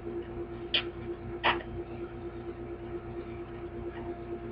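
Long twisting balloon being blown up by mouth: two short, hard puffs of breath into it about a second and a second and a half in, over a steady low hum.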